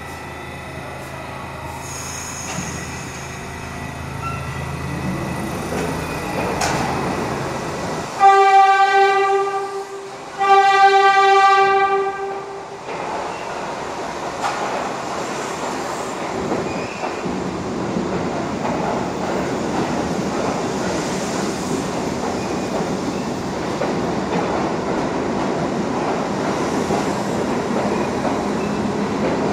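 New York City subway train, R68 cars, sounding two long horn blasts about 8 seconds in and then pulling out of the station. A low hum at first gives way to a rumble of wheels and traction motors that grows steadily louder as the train gathers speed.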